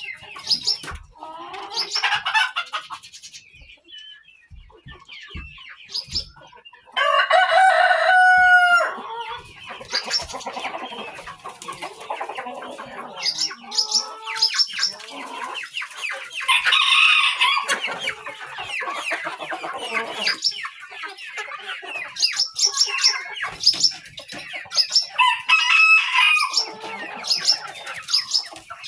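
A barn flock of chickens clucking and calling, with a rooster crowing loudly about seven seconds in and again near the end.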